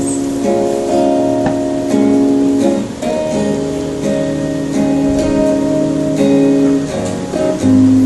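Live band music: an instrumental intro led by guitar, with held chords changing about once a second.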